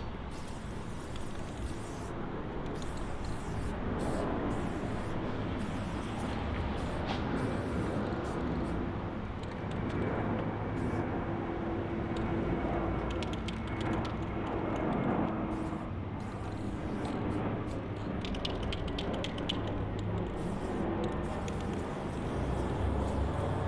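Aerosol spray-paint can hissing in short bursts as tags are painted, over a steady low background rumble.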